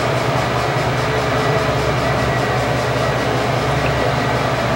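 Steady mechanical drone with a low hum and a thin high whine, even and unchanging in level, while motor oil pours from quart bottles into a funnel.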